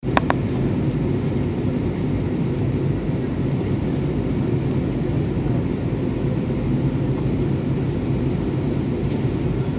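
Steady cabin noise inside an Airbus A320 airliner on descent: a constant low rumble of engines and airflow. Two brief clicks right at the start.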